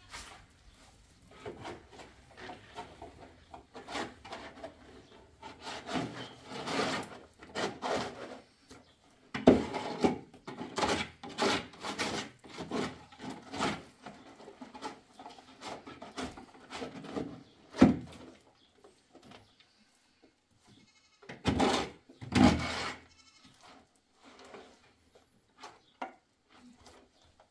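Wet plaster being mixed and scooped in a plastic basin with a trowel and bare hands: irregular scraping and rubbing strokes, with a few louder slaps and knocks.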